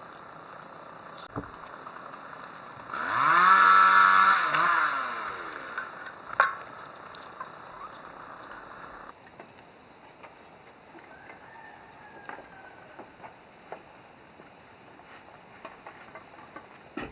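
A small engine revved once, its pitch rising, holding and falling away over about two and a half seconds, followed by a single sharp click. A steady high-pitched insect drone runs underneath.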